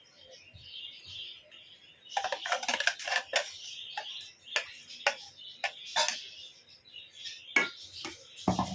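Metal spoon tapping and scraping against a steel mixer jar as ground pepper-cumin paste is scraped into a pot of kulambu. It starts about two seconds in as a run of irregular sharp clinks.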